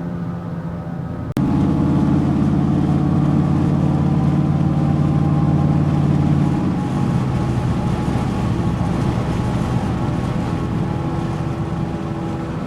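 Nitto Mud Grapper mud-terrain tires on a Ford F-150, a steady droning hum of tires and truck at road speed, heard from inside the cab. It gets suddenly louder about a second in.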